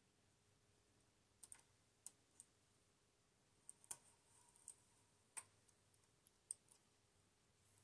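Faint, sharp metal clicks at irregular intervals, about ten in all: a hand transfer tool tapping against the steel needles and latches of a standard gauge knitting machine as stitches are moved from needle to needle.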